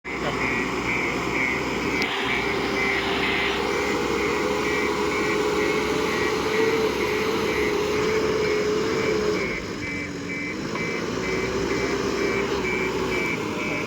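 JCB backhoe loader's 76 hp diesel engine running steadily under a reversing alarm beeping about twice a second. The engine note drops for about a second near the end, then picks up again.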